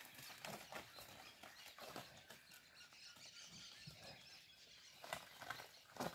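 Cows licking and eating salt from a trough, with hooves shifting: faint scattered knocks and scuffs, a few louder ones from about five seconds in.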